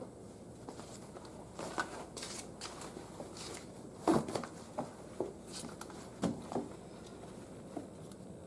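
Hands working around the mower's engine: irregular rustling with small clicks and knocks of tools and parts being handled, the loudest knocks about four seconds in and just after six seconds.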